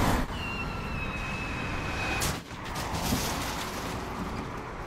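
Road-vehicle noise: a steady rush of car sound with a thin, slightly falling high tone for about two seconds. A sudden break follows, then rougher rumbling noise with a few short knocks.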